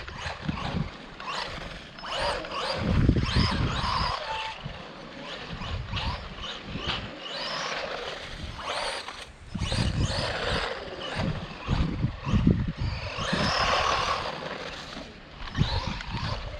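Brushless electric motor of a 1/16-scale HBX 16889 RC monster truck whining up and down in repeated bursts as the throttle is worked, with the tyres running over paving. Gusts of wind on the microphone rumble underneath.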